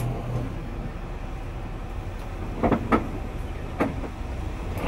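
Diesel engine of a Wright-bodied DAF double-decker bus running with a steady low rumble, heard from the driver's cab. Three short clunks come a little past the middle.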